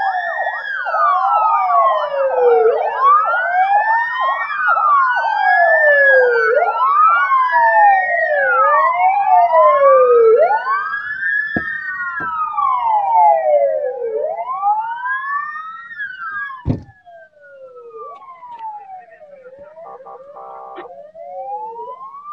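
Several ambulance sirens wailing together out of step, each rising and falling slowly. They thin out and grow quieter in the second half, with a sharp knock about 17 seconds in and a brief steady tone near the end.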